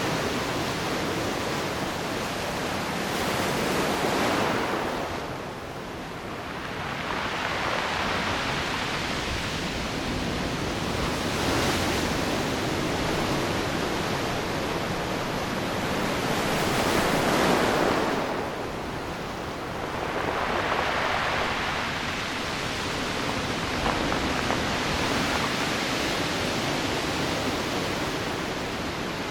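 Ocean waves breaking along the shore: a steady rush of surf that swells and ebbs, with the biggest surges about four, twelve and seventeen seconds in.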